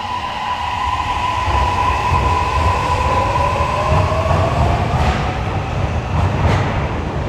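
Toei Mita Line 6500 series electric train pulling away, its Mitsubishi hybrid-SiC VVVF inverter whining: a steady tone joined by a second tone that rises in pitch as the train accelerates. Wheel rumble grows louder beneath it, with a few sharp clacks over rail joints in the second half.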